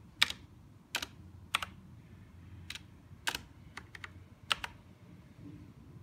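BST-906 mechanical gaming keyboard, its keys pressed one at a time: about ten sharp clicks at irregular spacing, several coming as quick doubles, stopping near the end.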